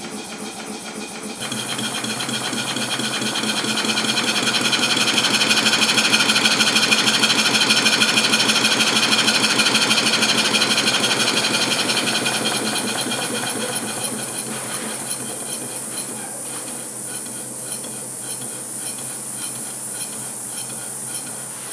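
Stuart No. 1 model vertical steam engine running on compressed air: a rapid, even patter of exhaust beats and moving parts with a steady hiss of escaping air. It starts suddenly about a second in, grows louder over the next few seconds, then slowly eases off in the second half.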